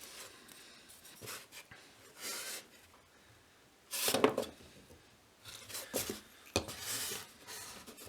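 Intermittent short scratching strokes and light metal clatter: layout lines being marked on a short bar of square steel stock, with a ruler being handled. The strongest stroke comes about four seconds in.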